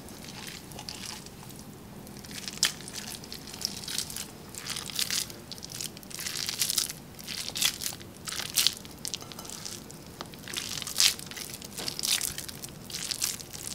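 Hands scooping, squeezing and packing a crumbly veggie-burger mixture of meatless ground and breadcrumbs in a ceramic bowl: irregular crunching, crackly squishes.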